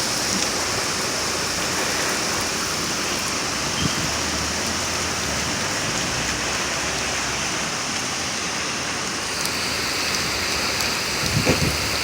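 Heavy thunderstorm rain pouring down as a steady, even hiss.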